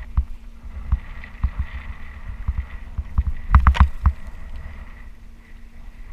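Hollow knocks and thumps on a plastic fishing kayak's hull: scattered single knocks, then a loud cluster of several about three and a half seconds in, over a low steady rumble.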